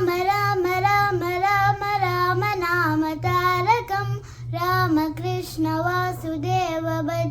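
A young girl singing a Sanskrit Rama bhajan solo, with held notes and melodic turns and a short breath break midway, over a steady low hum.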